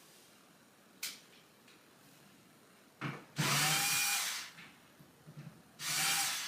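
Power drill run in two short bursts, a longer one about three seconds in and a shorter one near the end, with a click about a second in.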